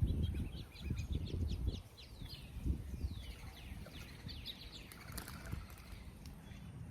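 Songbirds chirping, with quick high notes throughout and a few falling whistled notes near the middle. Low rumbling thuds are loudest in the first two seconds, then die away.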